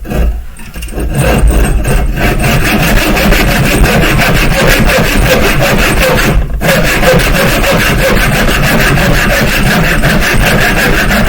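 Hand saw cutting through a piece of wood in fast, even strokes, with a brief break about six and a half seconds in.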